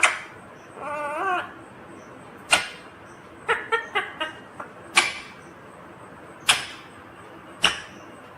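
Indian ringneck parakeet calling: a short warbling chatter about a second in, then a series of short, sharp squawks spaced a second or so apart.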